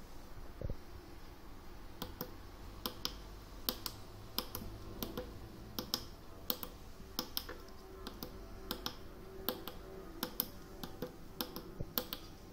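Small tactile push buttons on a breadboard transmitter circuit being pressed over and over: a string of sharp, irregular clicks starting about two seconds in.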